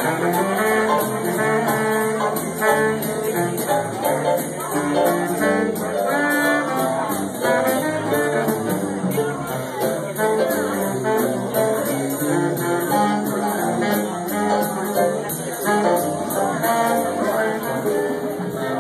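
Live dance band playing jazz-style music, with horns carrying the melody over a steady drum-kit beat with cymbal ticks.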